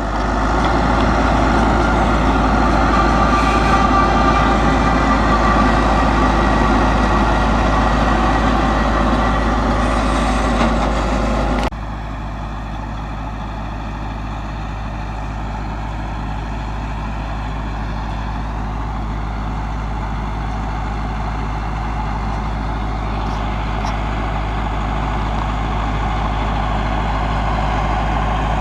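Massey Ferguson 375 tractor's diesel engine running steadily while baling hay with a round baler. About twelve seconds in, the sound drops suddenly to a quieter, lower running note, then slowly grows louder again.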